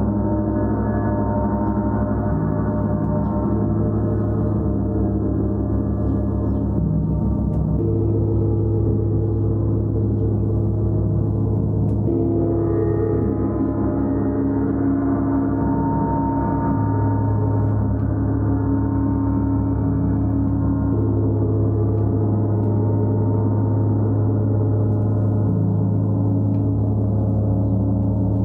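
Gongs ringing in a continuous, sustained wash of overlapping tones, their strongest overtones shifting every few seconds.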